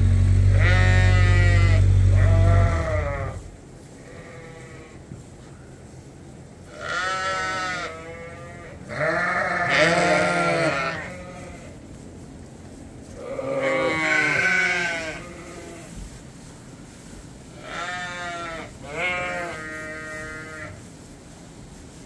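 Hungry sheep bleating for their hay, several wavering calls overlapping in about five bouts. A loud low engine drone stops about three seconds in.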